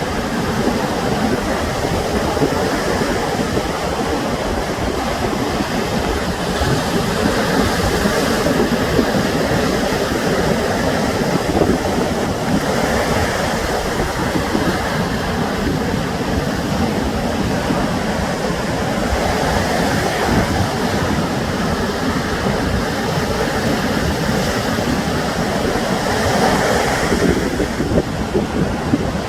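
Sea surf washing on the shore: a steady rush of waves that swells every six or seven seconds as each wave comes in.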